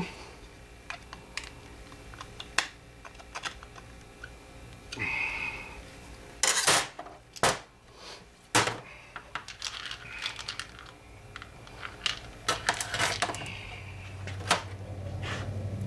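Small metal parts and hand tools clicking and clattering on a workbench as carburetor pieces are picked up and set down, in irregular taps with a few louder knocks about halfway through.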